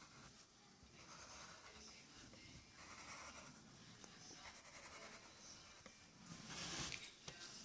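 Faint scratching of a drawing tool on paper: a run of short strokes, with a longer, louder stroke near the end.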